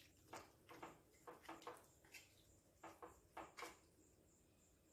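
Faint taps and scrapes of a black spatula against a white-lined frying pan while chicken pieces and onions are stirred, about ten short knocks spread unevenly.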